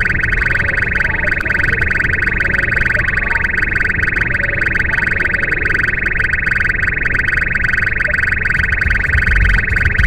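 Uniden R3 radar detector sounding its Ka-band alert: a fast, steady pulsing tone that runs without a break, the sign that it is locked onto police Ka radar ahead. Road rumble inside the car's cabin lies underneath.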